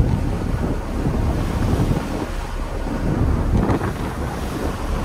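Heavy wind buffeting the microphone on a ferry's open outer deck, over the rush of water along the hull as the ferry runs through rough sea.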